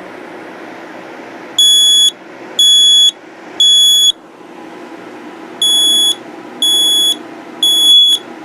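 Kidde i9010 smoke alarm sounding its loud, high-pitched alarm beep in two groups of three: the standard three-beep evacuation pattern, each beep about half a second long with a pause between the groups.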